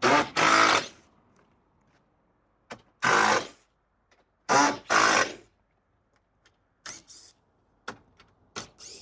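Cordless drill run in short bursts of about half a second, five pulls of the trigger within the first five and a half seconds, followed by a few lighter clicks and knocks.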